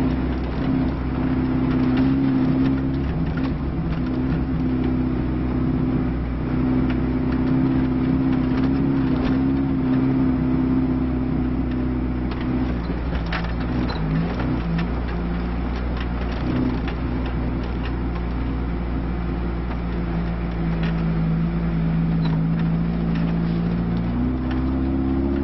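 Lada Niva's engine running steadily under load, heard from inside the cabin while driving off-road, with occasional sharp knocks. The engine note drops to a lower pitch about halfway through and climbs again near the end.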